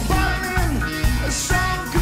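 Live rock band playing: drum kit with a steady beat and cymbals, electric guitar, and a moving melodic line on top.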